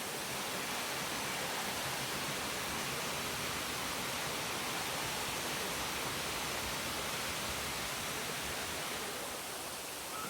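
Steady rush of water from a waterfall, an even hiss with no distinct events, easing slightly near the end.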